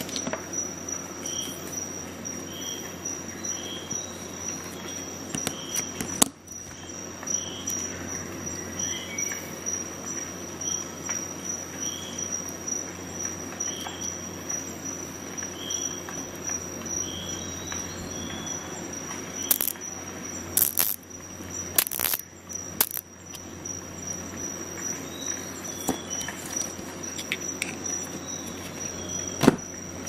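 Small metal tool accessories clicking and tapping as they are handled: a sharp click about six seconds in, a cluster of clicks about two-thirds of the way through and one more near the end. Under them are a steady high-pitched whine and faint chirps repeating about once a second.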